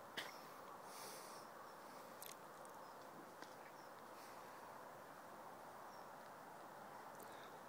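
Near silence: a faint, steady outdoor background hiss, with a couple of brief clicks and a few faint, short high chirps.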